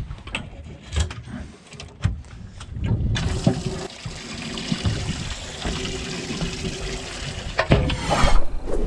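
A few knocks from the live well hatch being handled, then from about three seconds in the boat's live well aerator pump spraying water into the well in a steady rush. A loud clunk near the end.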